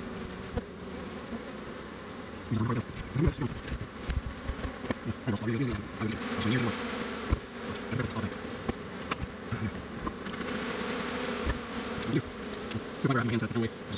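Honeybee colony buzzing steadily, with single bees' hums rising and falling in pitch as they fly close past, and a few sharp knocks.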